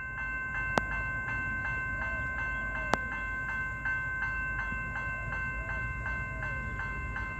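Railway level crossing warning bell ringing steadily in quick, evenly paced strokes, over the low rumble of the idling Doodlebug railcar standing at the station.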